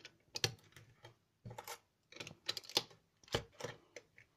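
LEGO bricks being handled and pressed together, plastic clicking and clacking against each other and knocking on a wooden tabletop in a series of sharp, irregular clicks.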